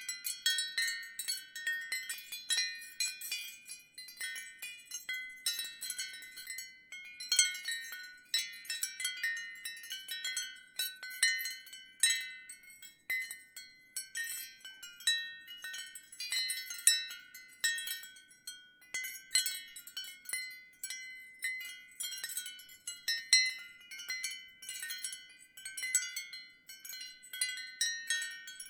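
Ceramic wind chime tinkling in the breeze: irregular, overlapping strikes of several high tones, each fading quickly.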